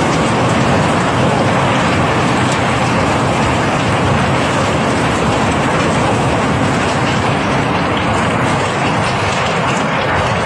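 Cobblestones flowing in a continuous stream during barge unloading: a steady, dense rattling rush of rock on rock.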